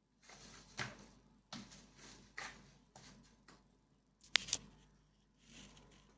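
Irregular clicks and short rustles, like small objects being handled, with one sharper, louder click about four seconds in.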